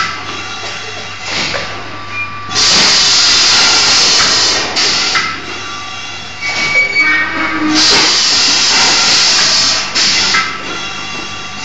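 An air-driven automatic cup washing, filling and sealing machine running. Two long, loud hisses of about two seconds each come about five seconds apart, with quieter machine clatter and a steady hum between them.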